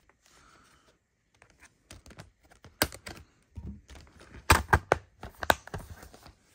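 Plastic multi-disc DVD case being handled: scattered light clicks and taps, with a cluster of louder plastic clicks about four and a half to five and a half seconds in as the case is snapped shut.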